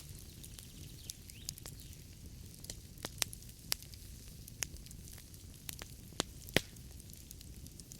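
Wood fire burning in a fireplace: a low steady rumble of flames with scattered sharp crackles and pops of the logs, the loudest pop near the end.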